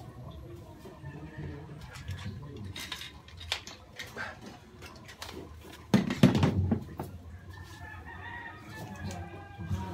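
Knocks and clatter of household things being shifted during cleaning, loudest in a clatter about six seconds in. Near the end a rooster crows in the background in one drawn-out call.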